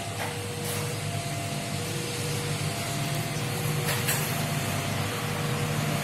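A steady low mechanical hum under an even hiss, growing slightly louder, with a few faint clicks.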